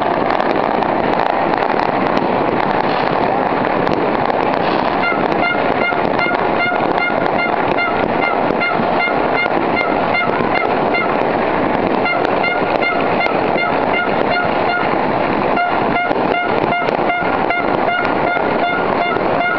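Citywide New Year's midnight din of firecrackers and fireworks, a dense continuous crackle. About five seconds in, a horn starts honking in rapid, regular pulses over it.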